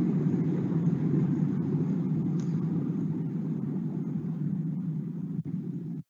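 Steady low rumbling noise with a few faint clicks, cutting off suddenly near the end.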